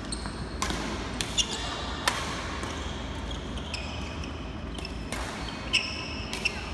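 Badminton rally: rackets strike the shuttlecock with sharp cracks several times, and court shoes squeak on the floor. A steady low hum runs underneath.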